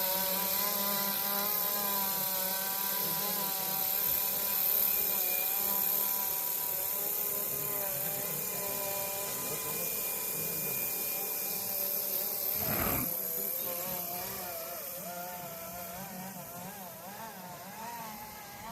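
Roban MD500 scale RC helicopter's motor and rotors running with a steady whine, its pitch wavering up and down in the later part as the sound slowly fades. A short rush of noise comes about two-thirds of the way through.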